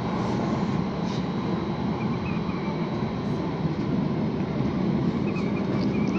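Tram running along the track, heard from the driver's cab: a steady rumble of wheels on rails. A faint high wavering tone comes in briefly about two seconds in and again near the end.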